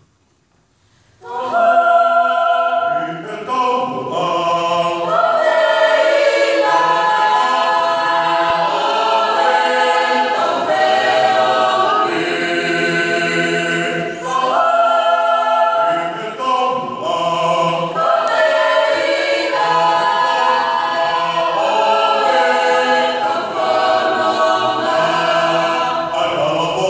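Youth choir of children and young adults singing a Tongan hiva usu hymn a cappella, many voices together in parts. The singing comes in about a second in after near silence, with short breaks between phrases.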